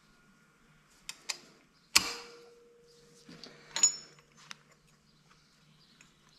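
Locking pliers being set on a broken steel stud: two light clicks, then two sharp metal clanks about two seconds apart, the first leaving a ringing tone.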